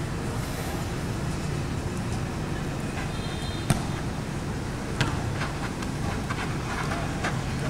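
Steady low outdoor background rumble over a football pitch, with two sharp thuds of a football being kicked about a second and a half apart, midway through.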